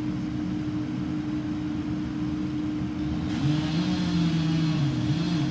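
Engines of heavy tree-removal machinery running. A steady engine hum holds throughout, and about three seconds in a second, deeper engine note joins, rising and falling as it is worked under load.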